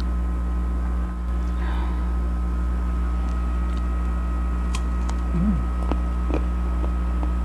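Faint crisp crunching and chewing as a slice of unripe green mango is bitten into, a few sharp crunches in the second half, over a steady low electrical hum. A short hummed "mm" about five and a half seconds in.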